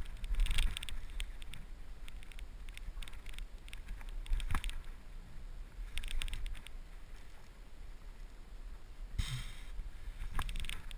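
Water sloshing and lapping around a wading angler, heard as irregular clusters of short splashy clicks over a low rumble, with a brief hissing rush about nine seconds in.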